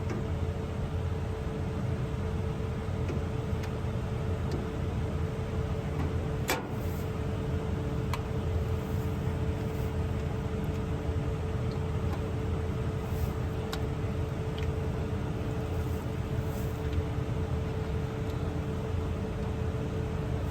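New Holland combine harvester running steadily while cutting wheat: a constant low drone with a steady hum over it, broken by a few sharp clicks, the loudest about six and a half seconds in.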